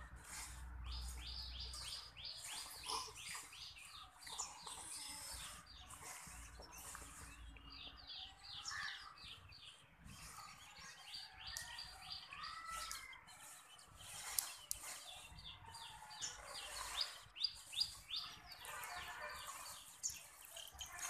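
Young chicks peeping continuously: many short, high calls in quick runs, each falling in pitch. A few sharp taps stand out in the second half.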